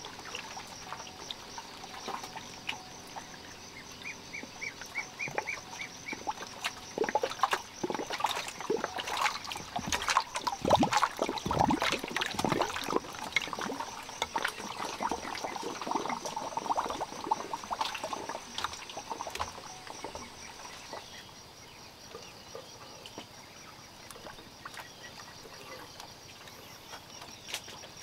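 Water pouring and dripping off a wet cast net as it is hauled up out of the lake, a patter of splashes that is heaviest in the middle and thins out towards the end.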